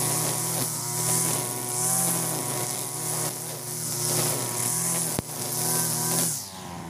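Backpack brush cutter's 43 cc two-stroke engine (EUROPA HILT EH4300) running at high revs, its 2.4 mm nylon trimmer line cutting through overgrown grass. The sound swells and dips about once a second with each sweep. There is a sharp tick about five seconds in, and the engine eases off near the end.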